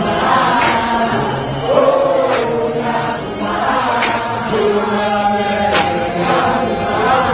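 A crowd of rugby fans singing together in chorus, with a sharp beat about every second and three-quarters.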